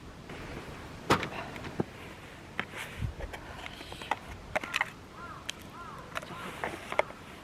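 Scattered clicks and knocks of camping gear being handled, the loudest about a second in. From about five seconds in, a bird gives a short call that rises and falls, repeated several times.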